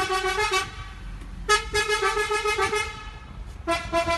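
A truck's fuel tank being filled through a pump nozzle gives a horn-like hoot at a steady pitch with a rapid flutter, in three bursts of about a second or more each.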